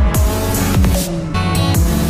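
Electronic dance music with a steady beat: deep kick drums over sustained synth bass notes.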